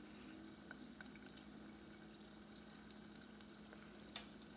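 Samosas slow-frying in oil in a saucepan: a faint, quiet sizzle with scattered small pops and ticks, the sharpest near the end. A steady low hum runs underneath.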